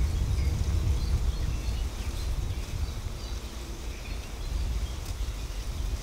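Wind on the microphone, a low uneven rumble, with faint scattered bird chirps from the trees.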